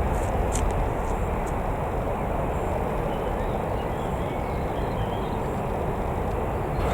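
Jet airliner engines heard from beside the runway: a steady rumbling roar that eases off over the first second or so and then holds level.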